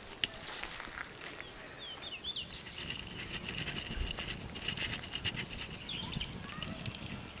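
Small birds chirping, with short rising and falling notes and quick repeated calls from about two seconds in. Under them come light crackles and clicks from a small fire of dry twigs and leaves as it catches and is fed by hand.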